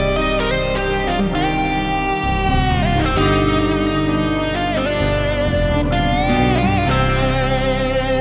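Instrumental background music led by a guitar playing held melody notes that slide up and down in pitch.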